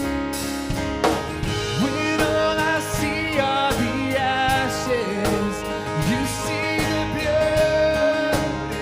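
Live worship band music between sung lines: a strummed acoustic guitar and a held chord under a melody line that slides between notes.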